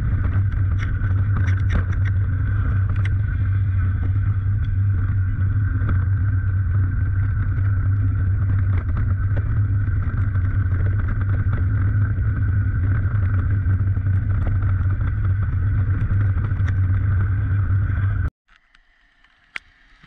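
Steady wind rush on an action camera's microphone, with the rattle and clatter of a mountain bike running fast down a downhill track. It cuts off suddenly near the end.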